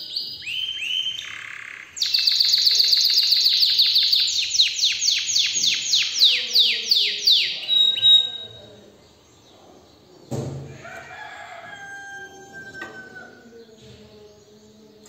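Domestic canary singing: a loud, fast trill of repeated notes that slows to about four sweeping notes a second and stops about eight seconds in. A single knock follows about ten seconds in, then quieter twitters.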